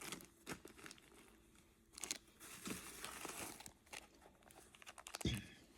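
Plastic bag crinkling and rustling as jewelry is handled, with scattered small clicks and a soft knock near the end.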